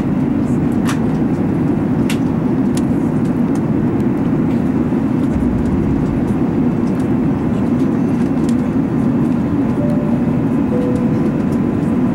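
Steady cabin noise inside an Airbus A380 during its descent to land: an even roar of airflow and engines, heard at a window seat.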